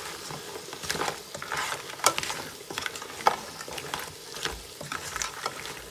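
Wooden spatula stirring lobster and crab pieces in their shells through vegetables in a nonstick frying pan: irregular scrapes, clicks and knocks of shell and spatula against the pan, over a light sizzle of frying.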